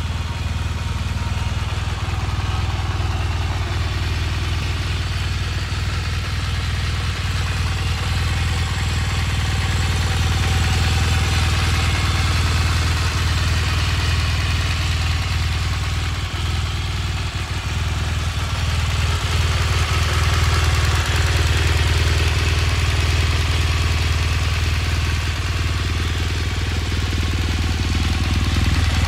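BMW R1200 GS motorcycle's flat-twin boxer engine idling steadily.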